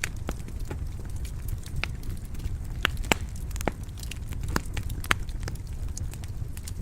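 Wood fire crackling in a fireplace: a steady low rumble of flames with irregular sharp pops and snaps, a few louder ones in the middle.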